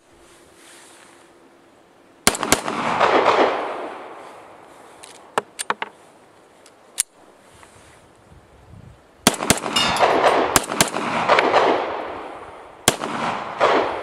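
Star 9 mm pistol firing Sellier & Bellot 115 gr 9 mm Luger rounds: two quick shots, a few lighter clicks, then a string of about six shots. Each shot is followed by a long echo. The shooter found this ammunition too weak to cycle the pistol properly, and the gun hung up on one round.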